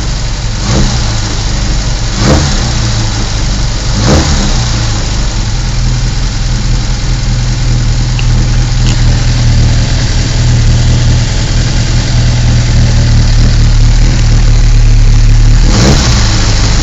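MG Midget's 1430cc four-cylinder A-series engine (a 1275 bored and stroked) running steadily at idle on its first run after a rebuild, with three short sharp sounds in the first four seconds.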